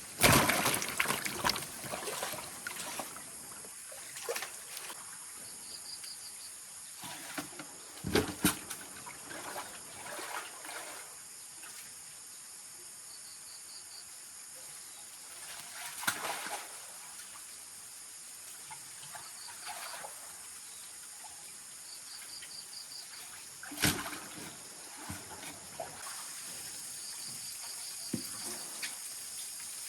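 Water splashing and trickling in short bursts, the loudest right at the start and others about every eight seconds, over a steady high insect drone with short repeated chirps.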